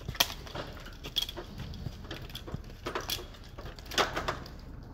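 Boots knocking on the rungs of a metal extension ladder as a climber goes up, with the metal gear on his climbing harness clinking; the loudest knocks come about a fifth of a second in and about four seconds in.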